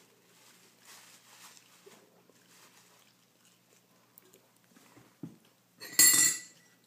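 Faint rustling of a paper napkin as a toddler's hands rub it, then about six seconds in a short, loud, high-pitched sound lasting about half a second.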